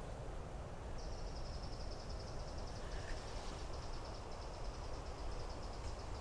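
Quiet woodland background: a low rumble, joined about a second in by a high, rapid, steady trill that keeps going.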